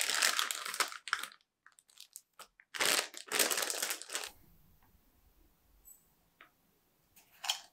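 Plastic packaging crinkling as it is handled, in two spells of about a second each, with small rustles between. A short, sharp tap follows near the end.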